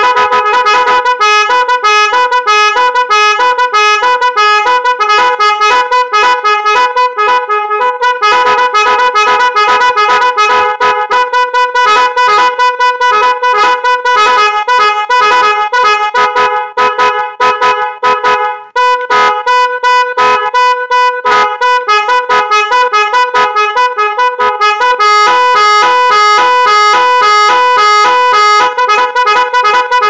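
Two 12 V electric snail horns sounding a 'magic horn' melody pattern: rapid, tune-like runs of short notes stepping between a few pitches. There is a short break a little past halfway, and the tone turns steadier and buzzier near the end.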